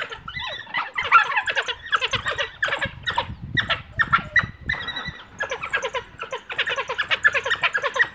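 A pack of African wild dogs twittering: many short, high calls in quick succession, with a few brief gaps.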